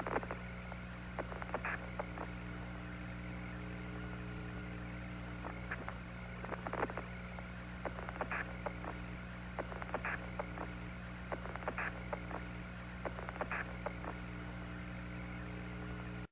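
Steady electrical hum and static on an Apollo radio/TV downlink audio channel, with short crackles and brief bursts of noise every second or two.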